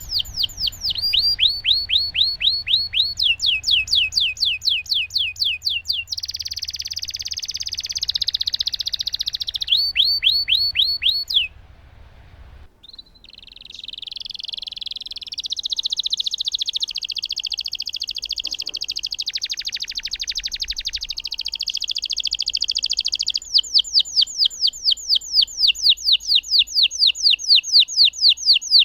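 Domestic canary singing a long, continuous song. It strings together runs of rapidly repeated down-sliding whistled notes and long buzzing trilled rolls, with a brief break about twelve seconds in.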